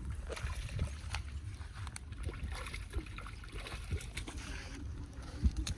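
Light sloshing and trickling of water with scattered small knocks and clicks, and a low rumble underneath.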